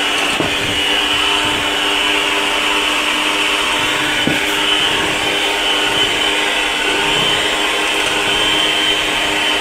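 Aicok electric hand mixer running steadily with its dough hooks turning through flour dough, a constant motor whine.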